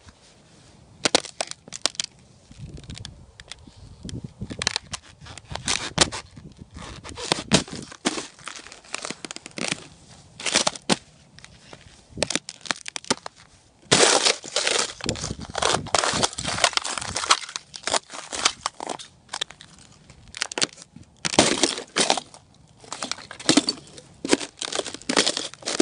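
Shoes crushing a crust of ice and snow underfoot, a long run of sharp irregular crunches. The crunching comes thickest and loudest a little past halfway, and again later on.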